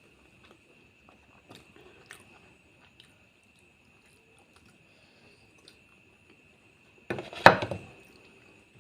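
Close-miked eating sounds: quiet, sparse chewing and mouth clicks, then a single loud wet bite or chew about seven seconds in that lasts under a second. A faint steady high whine runs underneath.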